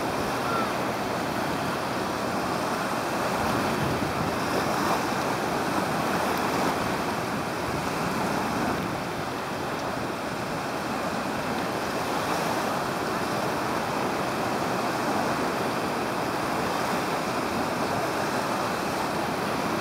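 Steady rushing of wind and surf on an open beach, with a slight lull about halfway through.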